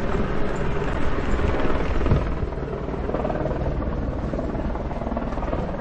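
Wind rumbling and buffeting on the microphone of a camera carried by a running runner, with the footsteps of a pack of runners on asphalt underneath.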